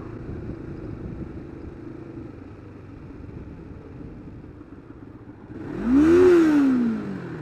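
Kawasaki GPZ500S parallel-twin motorcycle riding at low speed with engine and wind noise. Near the end, a lorry passes close in the opposite direction with a loud rush of air, and an engine note rises and then falls.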